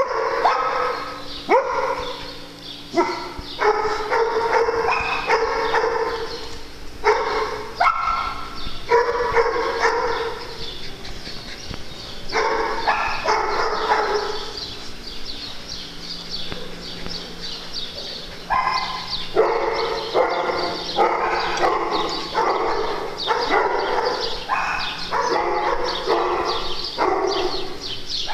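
Dogs barking repeatedly in runs of barks, with a lull of a few seconds about halfway through.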